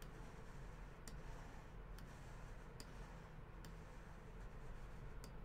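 Faint computer-mouse clicks, about five, spaced roughly a second apart, over quiet room tone.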